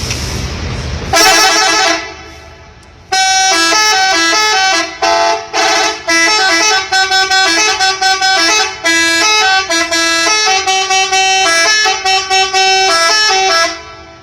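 Three-trumpet, five-button telolet air horn on a bus playing a tune. A low rumble gives way to a short blast about a second in, and after a brief pause comes a long run of quickly changing notes that stops shortly before the end.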